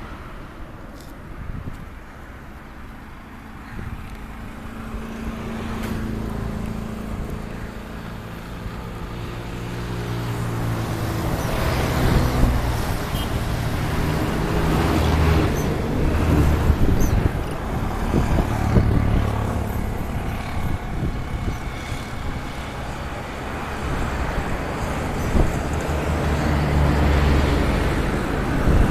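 A motor engine running, growing louder over the first dozen seconds and then holding, with wind buffeting the microphone.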